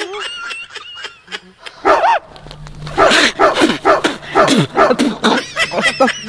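A man gagging and retching in repeated harsh heaves, starting about two seconds in and heaviest through the middle of the stretch, in disgust at food a dog had mouthed.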